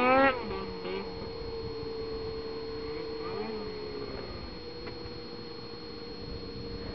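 Snowmobile engine drone holding one steady pitch, with a brief faint rise and fall in pitch about halfway through.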